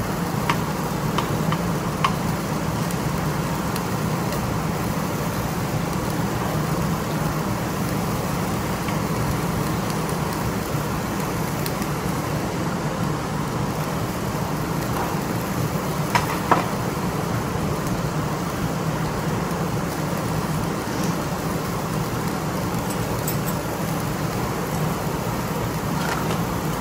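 Steady rushing and sizzling noise from a tabletop gas grill cooking meat, with a couple of faint clinks of tableware.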